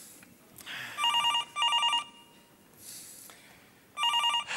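Telephone ringing with a fast electronic trill, in two double rings about three seconds apart.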